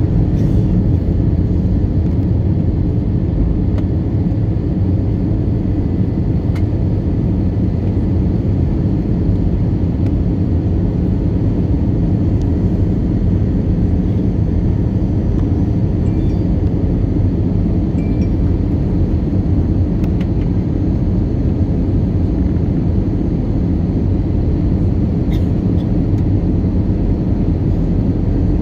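Steady low cabin roar inside an Airbus A321 airliner on approach, heard from a window seat over the wing: engine and airflow noise.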